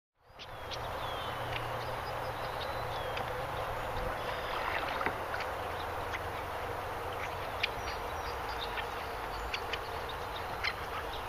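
Kayak moving on a calm river: steady water noise around the hull, with a low rumble and a few short high ticks and chirps scattered through. It starts about half a second in.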